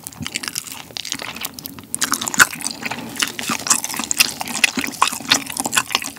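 Crunching bites and wet, sticky chewing of a fried chicken drumstick coated in sweet-spicy yangnyeom sauce, heard up close: a quick run of crisp crackles mixed with saucy mouth sounds.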